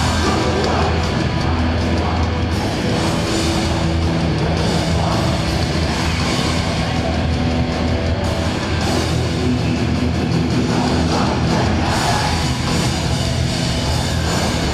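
Hardcore punk band playing live and loud: distorted electric guitars, bass and drums.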